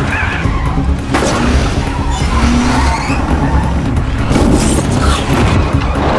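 Film car-chase sound: a car engine running hard, with tyres skidding in sharp bursts about a second in and again around four and a half seconds, over a tense music score.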